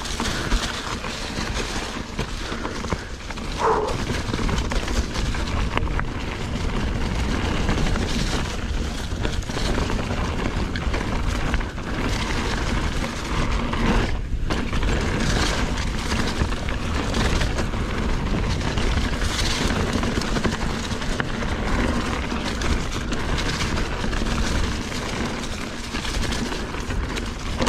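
Wind buffeting the camera microphone as a full-suspension Ibis Ripmo AF mountain bike descends a dirt singletrack at speed, its tyres rolling over the ground with frequent knocks and rattles from bumps.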